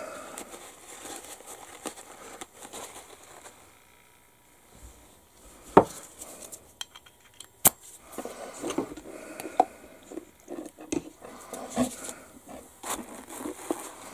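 Handling noise while an airbrush is wiped out: paper towel rustling and small clinks and knocks of the metal airbrush being handled, with two sharp clicks about six and eight seconds in.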